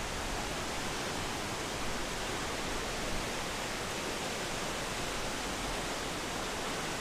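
Steady rush of water in the mountain gorge, an even hiss with no breaks or separate events.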